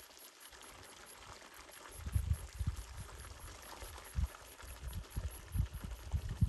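Wind buffeting the microphone in irregular low gusts from about two seconds in, over a faint steady rushing hiss.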